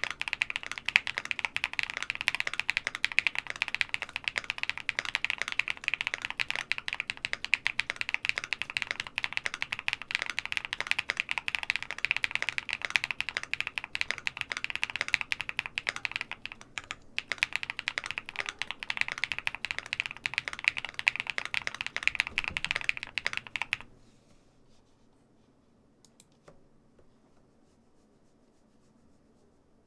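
Continuous typing on a QwertyKeys QK75N mechanical keyboard with lubed BSUN Kiki Red linear switches, an aluminium plate and all foams installed. The typing breaks off briefly about halfway through, then stops well before the end, leaving near silence with a faint click or two.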